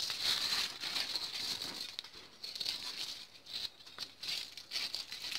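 Crumpled aluminium foil crinkling as it is handled, an irregular crackle that swells and fades.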